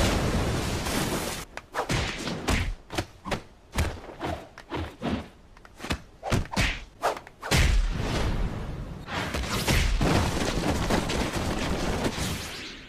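Animated fight sound effects: a rushing whoosh, then a quick, irregular run of sharp hits and thuds, then a loud sustained rumbling blast.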